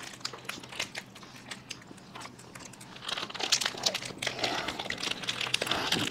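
Ice-cream wrappers crinkling and rustling as they are pulled open and handled, mixed with the mouth sounds of people eating ice cream. Scattered crackles at first, growing busier from about halfway.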